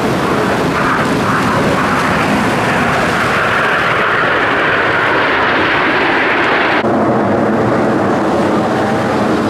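A formation of Aermacchi MB-339 PAN jet trainers flying past, their turbojet engines making loud, steady jet noise with a strong hissing whine through the middle. The high hiss drops away abruptly about seven seconds in.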